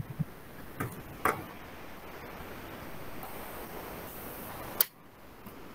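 Several sharp, short clicks scattered over a steady low hiss, the loudest near the end.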